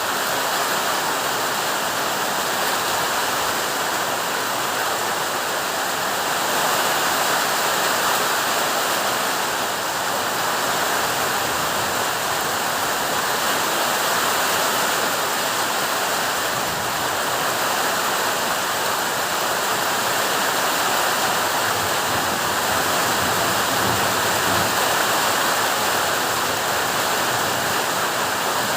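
Heavy summer rain pouring down steadily in strong wind, a continuous even rush with no pauses.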